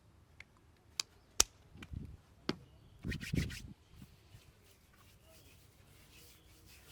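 Hand head massage: a few sharp hand strikes, the loudest about a second and a half in, then a short spell of hands rubbing and patting on the head and hair about three seconds in.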